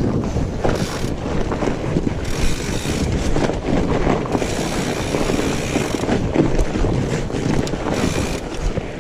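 Fat bike riding a rough trail: a steady low rumble with frequent small knocks and rattles, and wind buffeting the microphone.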